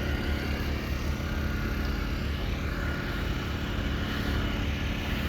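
An engine running steadily, a low, even drone with no change in speed.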